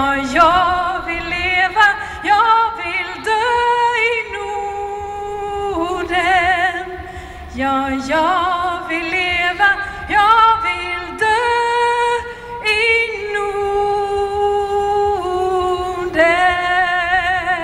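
Music: a solo singing voice holding long notes with strong vibrato, moving in steps between them, with little audible backing.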